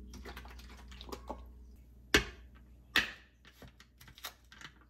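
Scattered light clicks and taps, with two sharper knocks about two and three seconds in.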